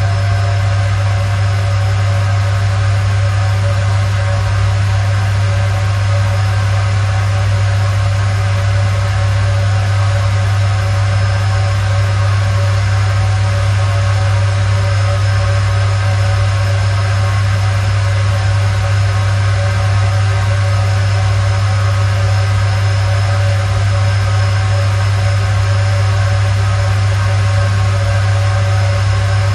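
Electric fan running steadily with a strong low hum and a layer of airy noise, unchanging throughout.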